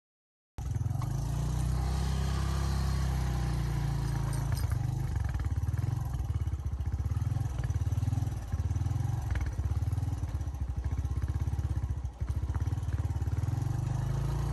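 Motorcycle engine running while being ridden: a steady, low drone with fine rapid pulsing that cuts in abruptly about half a second in.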